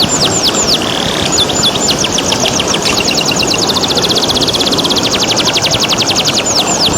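Domestic canary singing clear, repeated descending whistled notes, which break into a fast trill of about ten notes a second from around three seconds in, over steady running water.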